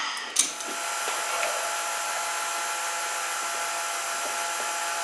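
Small handheld electric power tool switched on about half a second in, then running steadily at full speed with a high whine, used to knock the sharp corners off wooden toolbox parts.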